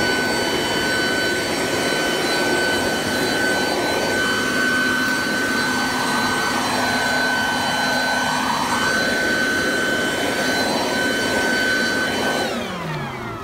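Ryobi RBV3000CESV electric leaf blower-vac running at full speed, a steady high motor and fan whine over rushing air as it blows leaves across grass. Near the end it is switched off and the whine falls away as the fan spins down.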